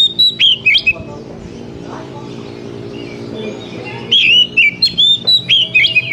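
Oriental magpie-robin singing: rapid runs of loud, sliding whistled notes, broken by a quieter pause of a couple of seconds before a second run starts about four seconds in.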